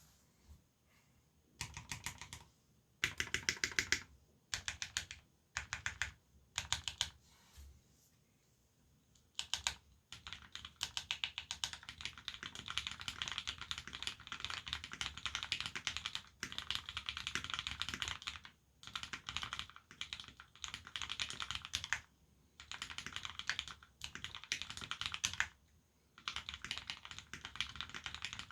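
Typing on an Abko AR87 mechanical keyboard with lubed Cherry Retooled Black linear switches, aluminium plate and GMK keycaps. There are short bursts of keystrokes for the first ten seconds or so, then fast, steady typing with a few brief pauses.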